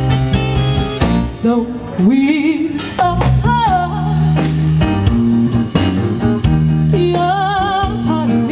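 Band music with a sung vocal: a voice slides up into a note about two seconds in, then holds wavering notes over guitar and a steady bass line.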